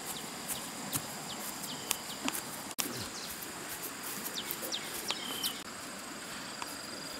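Birds chirping in many quick, short, falling calls over the steady high drone of insects, with a momentary dropout a little before three seconds in.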